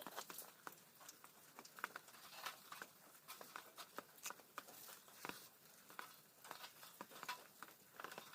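Faint wood campfire crackling: irregular sharp pops and ticks at varying loudness, several a second.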